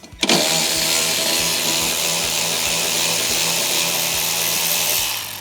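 Power drill-driver running steadily for about five seconds, backing out a 10 mm hex bolt, then stopping near the end.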